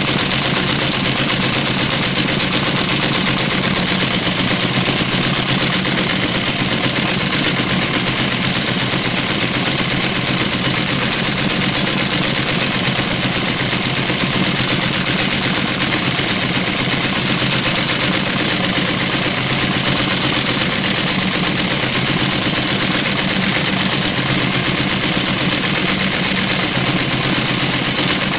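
Cornely FBN embroidery machine running steadily at speed, its needle clattering in a fast, even rhythm as it sews cord onto fabric.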